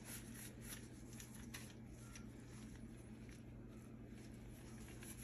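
Faint scratchy rubbing strokes of a cloth wiping a microwave's surfaces, busiest in the first second and a half and then sparser, over a low steady hum.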